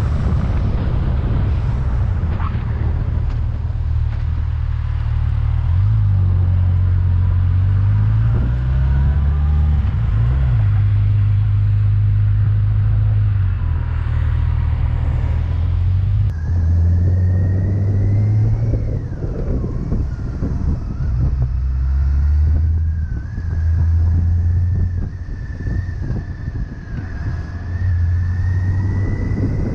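Motorcycle on the move: a low engine drone with wind rushing past, the engine note rising and dropping several times as it changes speed. A faint high whine runs through the second half.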